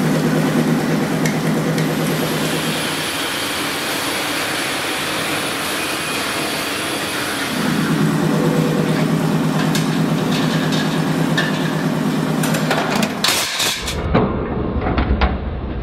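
Steel-strip roll-forming and coiling machines running with a steady mechanical drone, which eases about three seconds in and comes back strong about eight seconds in. Near the end come several sharp metal clanks as a shear cuts the coiled rim profile into rings.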